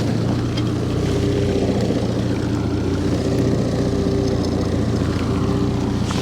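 Boat engine running steadily, a continuous low hum with a few even tones.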